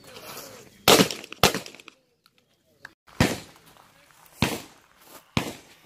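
Shotgun fired five times at uneven intervals: two quick shots about half a second apart about a second in, then three more spaced roughly a second apart.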